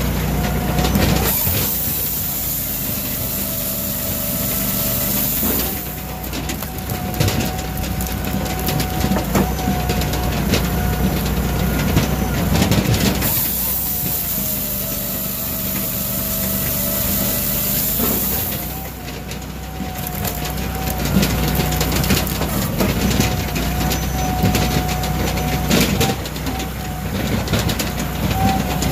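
Firewood processor running steadily on its 26.5 HP Kohler EFI engine while its chainsaw bar cuts through a log twice, about a second in and again near halfway, the saw's whine dropping in pitch under load with a hiss of flying chips. In between come sharp knocks and cracks of wood being split and falling.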